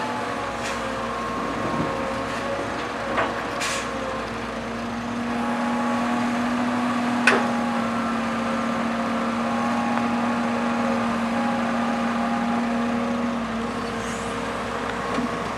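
Diesel engine of a Kobelco Yutani hydraulic excavator working, its steady hum rising under load for several seconds in the middle and then settling back, with a few sharp metallic knocks and a brief hiss.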